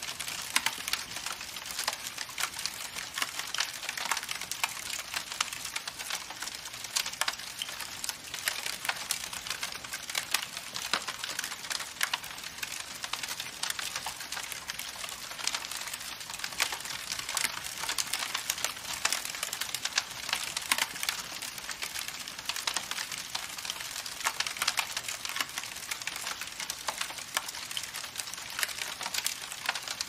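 Campfire burning with dense, irregular crackling: many sharp snaps a second over a steady hiss.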